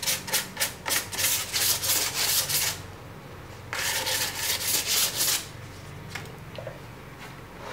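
Sandpaper rubbing by hand on the painted edges of a wooden dresser drawer, distressing the paint down to the wood. It goes in quick back-and-forth strokes, stops briefly about three seconds in, then runs in a denser stretch before falling off after about five and a half seconds.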